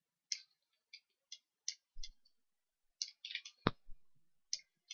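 Faint computer mouse clicks, about a dozen short, irregular clicks as the cursor drags and scales shapes, with one sharper, louder click about three-quarters of the way through.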